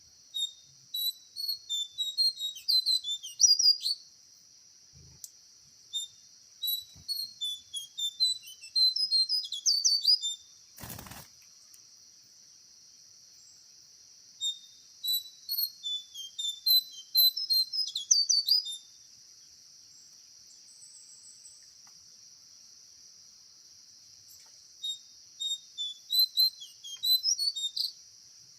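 A bird sings in four bouts of quick, repeated chirping notes, each lasting a few seconds, over a steady high-pitched insect drone. A single sharp knock comes about eleven seconds in.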